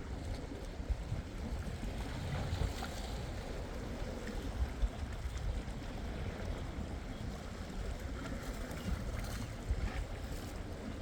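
Wind buffeting the microphone by the sea, with the steady wash of waves underneath.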